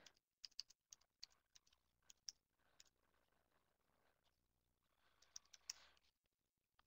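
Near silence with a few faint, scattered clicks of a computer keyboard and mouse while entering a login: a cluster in the first second or so, one more a little after two seconds, and two about five and a half seconds in.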